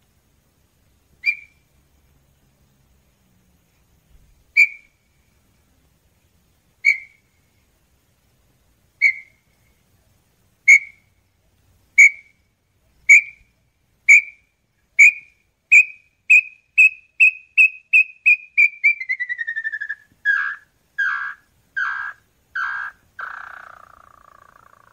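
Small-billed tinamou song: a series of pure whistled notes, at first a few seconds apart, speeding up into a fast run. Near the end the run slides down in pitch and ends in a few lower, longer notes.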